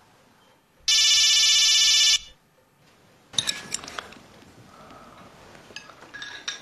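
Electronic telephone ringer giving one warbling ring about a second and a half long, about a second in, in an otherwise quiet room. Later, light clicks and clatter of chopsticks and dishes at a dinner table.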